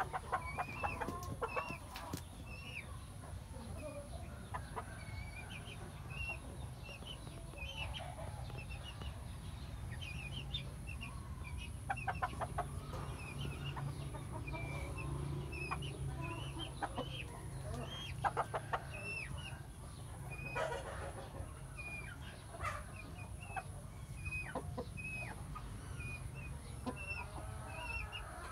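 Chickens clucking, with many short high chirps repeating throughout and an occasional louder call.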